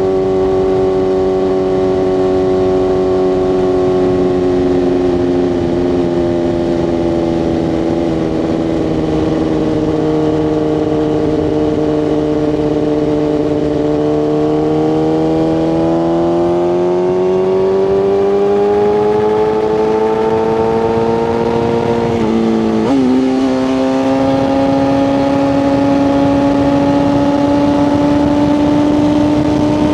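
BMW S1000RR's inline-four engine under way: the note eases down slowly, then climbs as the bike accelerates, drops sharply at a single upshift about three-quarters of the way through, and settles into a steady cruise, with wind rush underneath.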